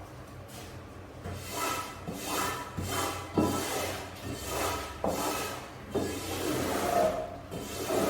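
Brush scrubbing a wet, foamy carpet in repeated rasping strokes, about one stroke every three-quarters of a second.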